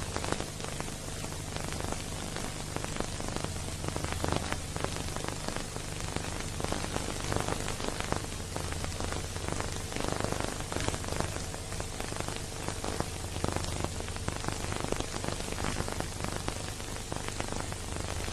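Steady crackling noise, dense fine clicks over a hiss, with a low steady hum underneath. This is the surface and transfer noise of a silent film's soundtrack.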